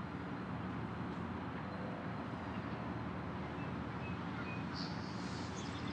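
Steady low outdoor background rumble with no distinct event, and a few faint, short, high chirps about four to five seconds in.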